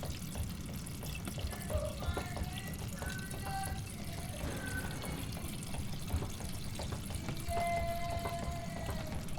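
Water running and pouring steadily, with a low rushing noise.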